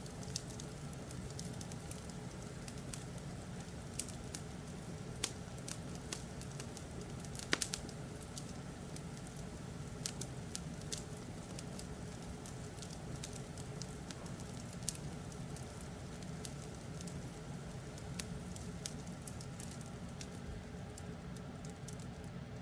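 Wood fire crackling: irregular sharp pops and snaps, one cluster louder about seven seconds in, over a steady low rumble.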